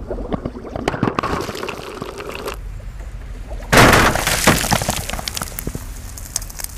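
Glass tube of alkali metal cracking underwater, a run of clicks and crackles. About four seconds in comes a sudden loud burst as the metal meets the water and reacts violently, then continued crackling and churning water.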